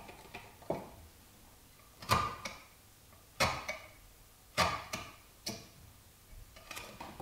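A hand-pushed carving chisel cutting into a wooden lovespoon. Each cut through the wood fibres makes a sharp click, about four loud ones roughly a second apart with fainter ticks between.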